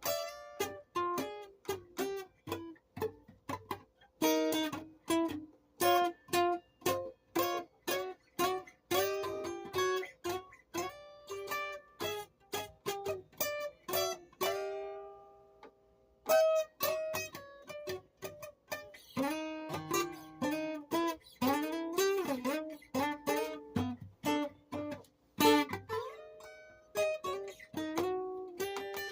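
Music from a plucked string instrument: a quick run of single plucked notes, with one note left ringing and fading about halfway through before the playing picks up again.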